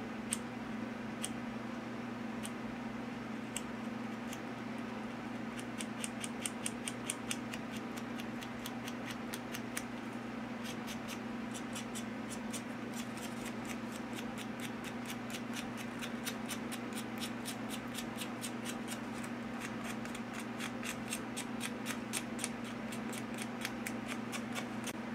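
A small knife blade scraping and shaving the nib of a feather quill in quick short strokes, heard as runs of light, crisp ticks several a second, over a steady low hum.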